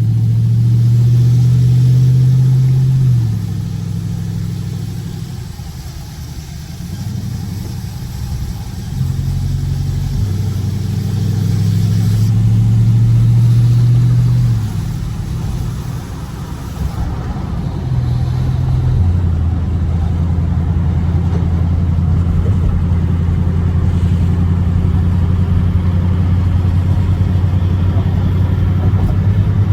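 Dodge Scat Pack's 392 HEMI V8 under way on the highway. Two spells of heavier throttle in the first half ease off between them, and after that it settles into a steady cruising drone.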